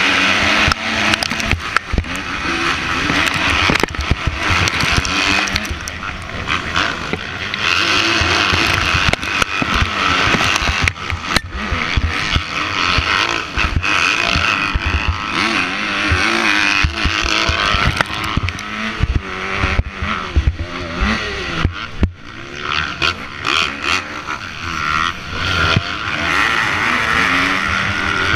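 Motocross bike engines revving hard under race load: the rider's own bike is closest, its pitch rising and falling as it accelerates and shifts, with other dirt bikes running alongside. Frequent sharp knocks from the bike hitting the rough track are mixed in, heard from a helmet-mounted camera.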